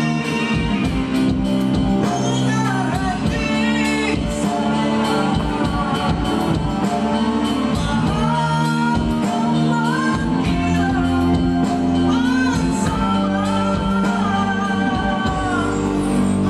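A man singing live into a handheld microphone, accompanied by a Yamaha electronic keyboard and an electric guitar, over a steady beat.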